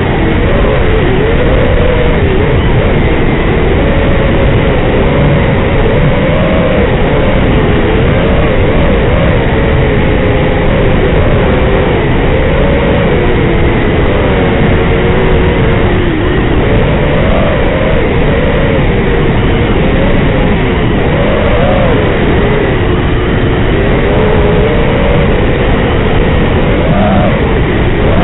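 FPV racing quadcopter's four brushless motors and propellers (Racerstar 2205 motors) whining under changing throttle, the pitch rising and falling as the quad manoeuvres. Heard through the onboard camera's microphone over the analog video link, so it is noisy and cut off in the treble.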